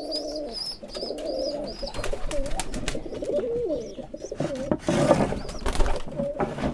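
Giribaz pigeons cooing, several overlapping wavering coos in a loft. A run of short high chirps sounds in the first two seconds, and a brief burst of noise comes about five seconds in.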